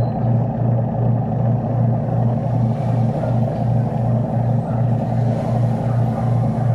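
Washing machine motor running after a wiring repair, with a steady low hum that pulses about two to three times a second as it turns the tub.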